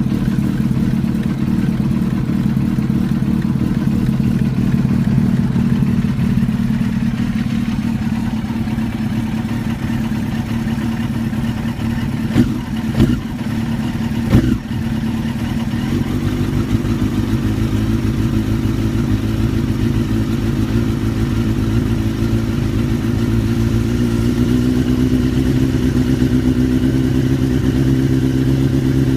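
2001 Suzuki GSX-R1000 (K1) inline-four engine running steadily at low revs through a titanium silencer that is nearly a straight pipe. A few short knocks are heard around the middle, and the engine speed creeps up slightly near the end.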